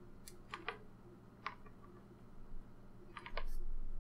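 Faint scattered clicks and taps of hands handling a small plastic tiny-whoop drone frame on a cutting mat, over a low steady hum; a dull low rumble comes in near the end.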